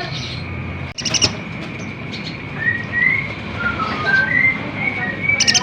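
Song of a kolibri ninja sunbird: a quick burst of high chirps about a second in, then a series of short thin whistled notes, and a fast rattling trill breaking out near the end.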